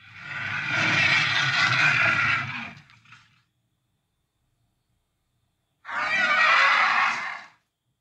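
Two cartoon Tyrannosaurus roar sound effects: a long roar of about three seconds, then a shorter one of about a second and a half beginning near the six-second mark.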